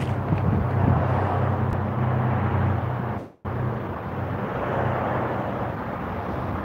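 Outdoor street ambience: a steady rumble of wind on the phone's microphone mixed with traffic noise, dropping out for a split second a little past the middle.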